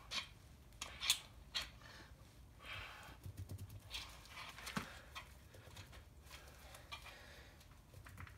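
Scattered light clicks and knocks of loose metal engine parts being handled, with a few sharp ones in the first second or two and more near the middle, over a faint low hum.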